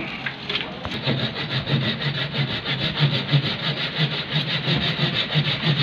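Hand pruning saw cutting through the woody stem of a young banyan fig (beringin) with quick, even back-and-forth strokes, starting about a second in.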